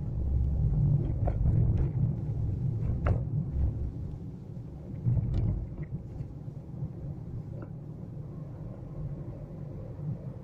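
Low rumble of a car driving along a street, heard from inside the cabin, with a few light knocks or rattles scattered through it.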